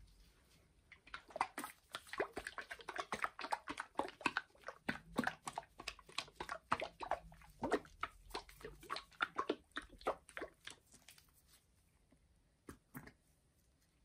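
A plastic bottle of white liquid being shaken hard, the liquid sloshing and knocking in quick irregular strokes for about ten seconds. Two short clicks follow near the end as the cap is opened.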